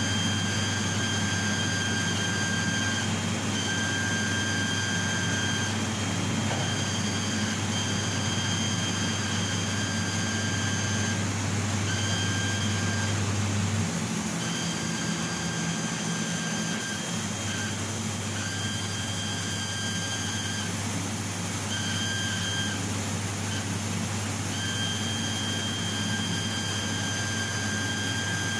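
Laser cutting machine running while cutting an acrylic sheet: a steady hiss with a low hum, and a high whine that cuts in and out every second or two as the head works. The low hum drops out for a few seconds midway.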